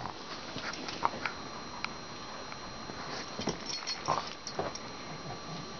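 Pugs moving about on a carpet, with a few short, soft sounds from the dogs scattered through.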